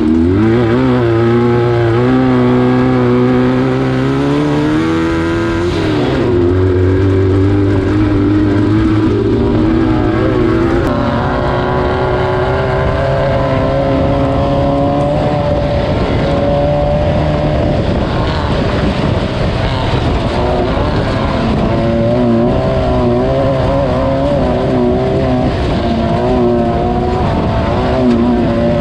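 Class 9 off-road race buggy's engine under hard throttle, revving up in the first seconds and dropping in pitch about six seconds in at a gear change. It then runs steadily at high revs, the pitch wavering up and down.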